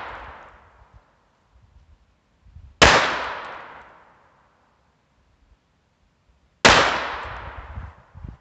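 Two shots from a Browning Buckmark .22 LR pistol, about four seconds apart. Each is a sharp crack with a long echo that dies away over about a second and a half. The echo of a shot fired just before is still fading at the start.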